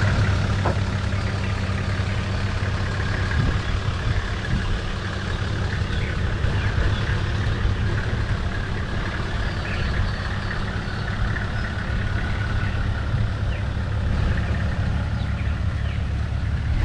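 Nissan TD42 straight-six diesel engine idling steadily, an even low hum with no change in revs.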